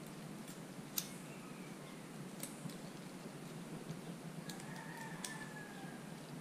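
Hands working a Fox Float X2 rear shock's air can while fitting volume spacers: a few sharp metallic-plastic clicks, the loudest about a second in, and faint short squeaks of parts sliding against each other.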